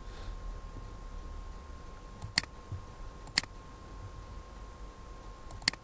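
Computer mouse clicking: three sharp clicks, the last a quick double, over a faint steady hum.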